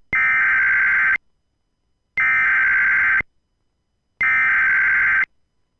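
Emergency Alert System SAME header: three harsh, buzzy digital data bursts, each about a second long and a second apart. The bursts encode the alert's event code for a Child Abduction Emergency (Amber Alert) and the areas it covers.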